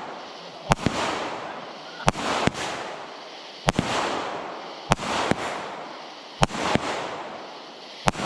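Consumer fireworks going off in a steady string: a sharp bang about every second or so, some in quick pairs, each followed by a crackling fizz.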